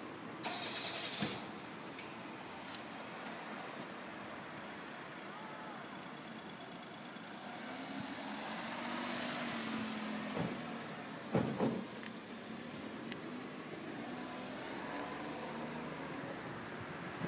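Steady vehicle and street noise, with a low engine hum that swells about eight seconds in and fades by twelve. A few sharp knocks come near the start and between ten and twelve seconds in.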